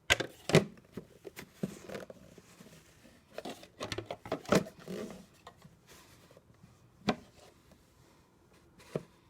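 Scattered clicks, knocks and rustling of things being handled, with sharp knocks right at the start and about seven seconds in; no vacuum motor is running.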